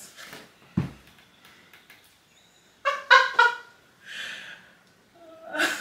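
A single thump just under a second in, then a woman's short, high-pitched excited squeal in three quick bursts about three seconds in.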